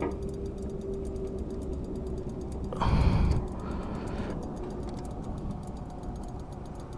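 A person's breath on a helmet-mounted camera microphone, one loud sigh-like exhale about three seconds in, over a low steady rumble.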